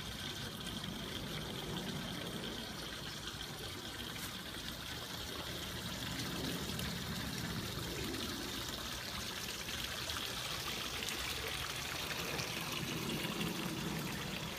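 Water trickling steadily through an ebb-and-flow hydroponic grow bed's troughs.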